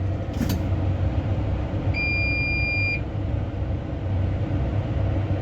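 Tractor engine running steadily, with a single electronic beep about two seconds in that lasts about a second.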